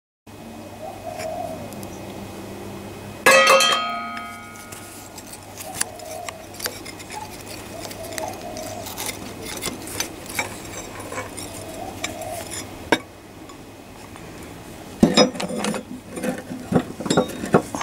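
Steel tools and engine parts clinking and clanking while the rocker gear and head bolts of a Lister CS diesel engine are worked on. One loud ringing metal clang comes about three seconds in, then scattered light clinks, and a quick run of knocks and clatters near the end.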